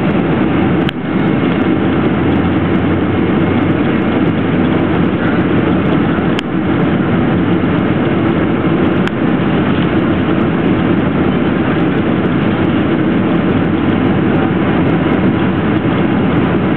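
Steady cabin noise inside a Boeing 767-300 airliner on approach: the jet engines and rushing airflow make a constant, even rumble that does not change.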